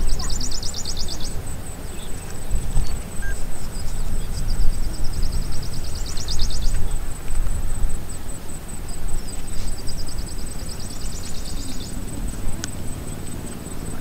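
Outdoor insect chorus: a steady, very high-pitched pulsing buzz, with a lower, fast-pulsed trill that builds and stops three times. Low rumbling noise sits underneath.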